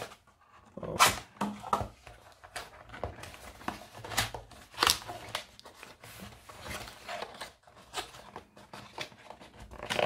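A kraft cardboard box being handled: its paper sleeve sliding off and the tucked end flap being worked open, giving a string of short, irregular papery scrapes and rustles.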